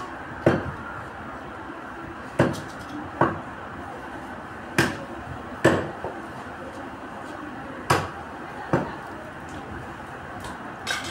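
A butcher's cleaver chopping through beef ribs onto a wooden log chopping block: about eight sharp chops, irregularly spaced and often in pairs less than a second apart.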